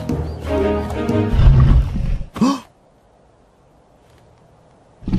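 Cartoon background music, cut off about a second in by a deep, rumbling dinosaur roar that ends in a short sharp sound. A quiet pause follows, then another deep roar starts near the end.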